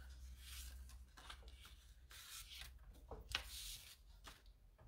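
Faint rustling and a few light taps of cardstock and paper being handled and moved about.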